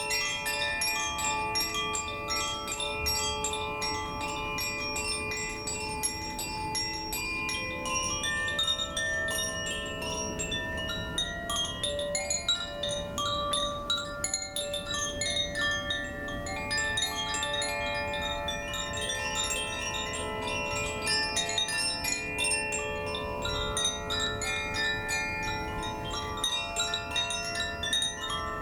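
Koshi chimes played continuously: quick, irregular strikes with many ringing notes sustaining and overlapping into a shimmering wash.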